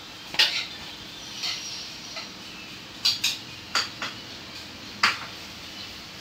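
Dell laptop's touchpad buttons clicking: about seven sharp, irregular clicks, the loudest about half a second in and near the five-second mark.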